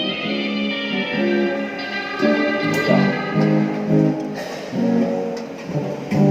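Music led by a plucked guitar, playing short repeated chords.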